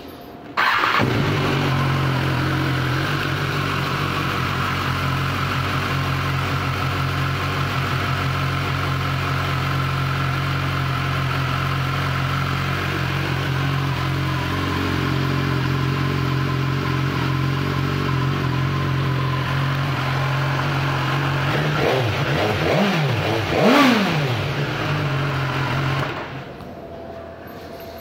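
2019 BMW S1000R's inline-four engine, fitted with an Akrapovič slip-on exhaust, starts up about a second in and idles steadily. Near the end it is revved twice in quick succession, then shut off about two seconds before the end.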